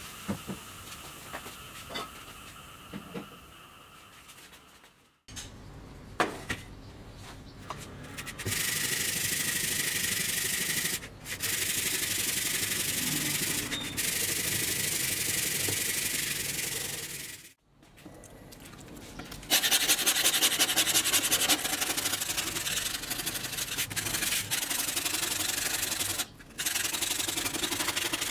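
Faint fizzing and crackle of a rusty circular saw blade soaking in foaming rust remover. Then a brush scrubs the blade in the liquid with a steady rasping hiss. Later a metal scraper rubs rust off the blade in quick strokes.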